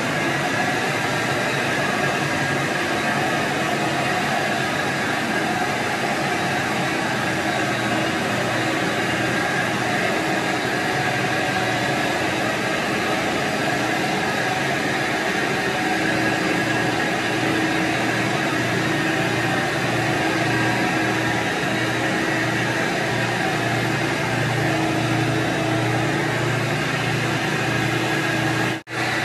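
Rotary carpet extraction tool running steadily as it is pushed over carpet: a constant vacuum rush with a motor hum, dropping out briefly near the end.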